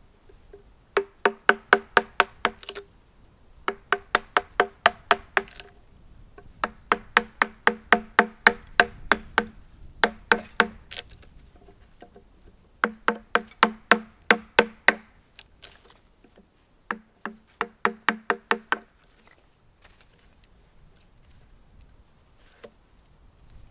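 Quick, even hammer blows on wood, in six runs of several blows a second separated by short pauses, each blow a sharp knock with a ringing tone.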